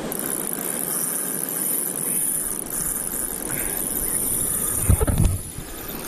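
Steady wash of wind and surf, with a few low thumps about five seconds in.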